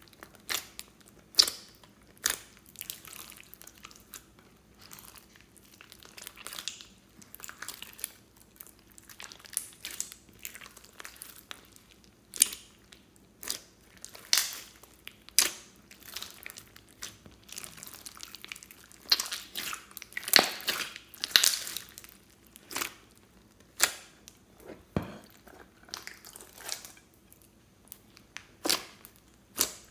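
Hands squeezing and pressing a large mass of glossy slime mixed with foam beads (floam), giving irregular sticky pops and crackles with short quiet gaps, and a denser run of louder pops about two-thirds of the way through.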